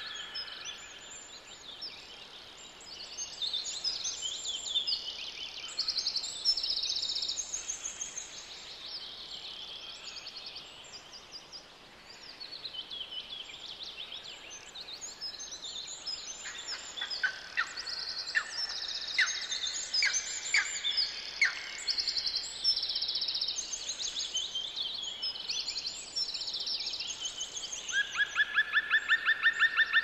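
Several songbirds singing, with overlapping high, quick phrases and trills. Near the end a loud, rapid trill starts.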